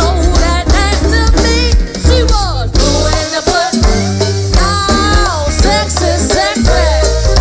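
Live go-go band music: heavy bass and drum-kit beat with percussion, and a voice singing over it.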